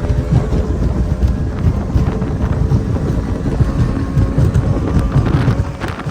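Strong wind buffeting the microphone in uneven gusts, over the race boat's engine running underneath.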